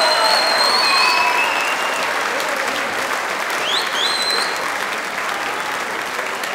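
Audience applauding, the clapping slowly thinning. A high whistle sounds over it at the start, and another rises about four seconds in.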